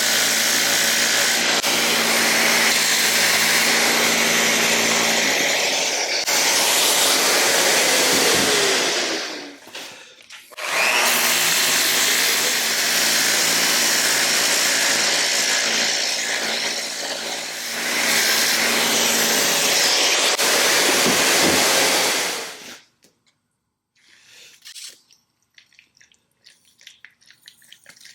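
Handheld electric power tool running steadily. It is switched off about 9 seconds in and spins down with a falling whine, restarts a second later, then spins down and stops again a few seconds before the end. After that come only faint light taps and scrapes.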